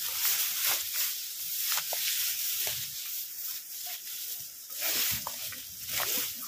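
Footsteps rustling and crackling through dry leaves and brush as people walk downhill, irregular over a steady hiss.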